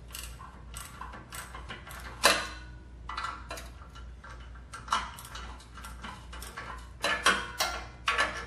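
Ratchet wrench clicking in short, irregular strokes as it tightens a spring-loaded exhaust flange bolt, with a few louder metallic clacks along the way.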